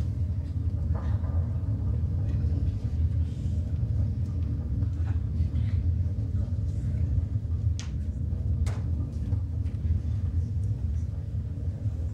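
Deep, steady rumble of an earthquake sound effect, with a couple of sharp clicks about eight seconds in.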